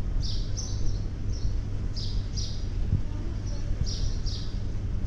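A small bird chirping again and again, short high falling chirps often in pairs, about one burst a second, over a steady low hum.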